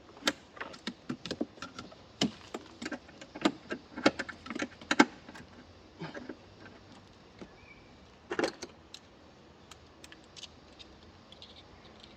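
Irregular light metallic clicks and clinks of hand tools and parts being handled, dense for about the first five seconds and then sparser, with a louder cluster about eight seconds in.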